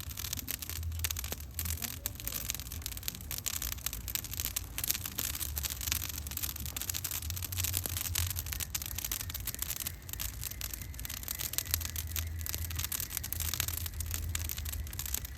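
Wood bonfire crackling with many small irregular pops and snaps, over a steady low rumble.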